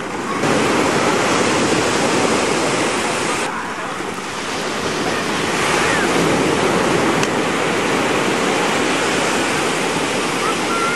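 Surf breaking and washing up on a sandy beach: a steady rush of small waves, louder from about half a second in.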